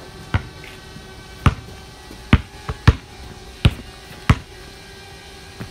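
A basketball bouncing on a concrete driveway: about eight sharp bounces at uneven intervals, two of them close together near the middle.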